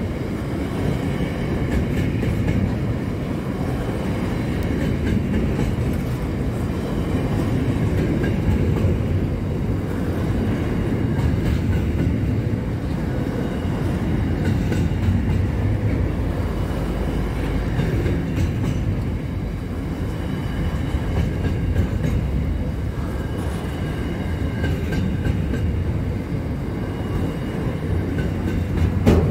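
Freight train of container wagons rolling steadily past at close range: a continuous rumble of wheels on rail, with faint thin high tones above it.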